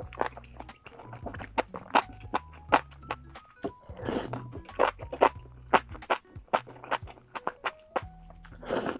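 Close-miked eating: a steady run of sharp, crunchy bites and chewing, with a louder crunch about four seconds in. Soft background music plays underneath.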